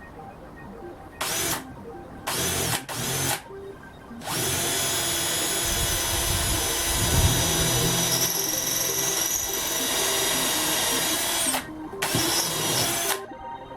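A small electric power tool motor run in short trigger bursts that speed up and wind down. It then runs steadily for about seven seconds and ends with two more short bursts.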